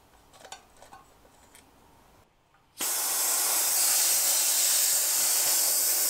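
A few faint small clicks, then about three seconds in a sudden loud, steady hiss of compressed air rushing through the core-removed Presta valve into a tubeless-converted small bike wheel. The tyre still will not seat and inflate.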